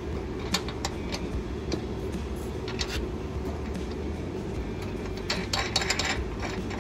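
A steady low hum, with scattered light clicks and a cluster of small clinks about five seconds in.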